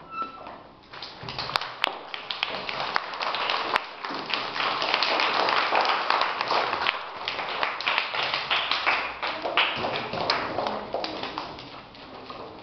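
A roomful of young children clapping. The clapping starts about a second in and dies away near the end.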